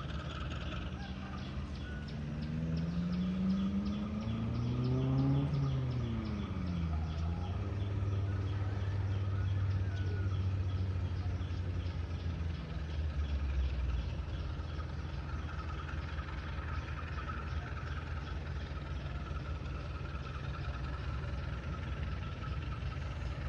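An engine revs up, its pitch climbing for about three seconds, then drops away quickly and settles into a steady low drone for several seconds before fading. Rapid, even high-pitched chirping and a steady hum run underneath.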